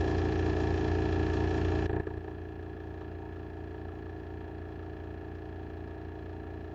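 A steady mechanical hum with a hiss over it; about two seconds in the hiss cuts off suddenly and the hum carries on more quietly.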